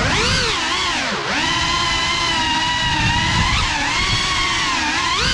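Geprc Cinelog 35 cinewhoop's brushless motors whining through its prop ducts, picked up close by the onboard GoPro. The pitch dips and rises with the throttle, holds nearly steady for a couple of seconds, then climbs sharply near the end.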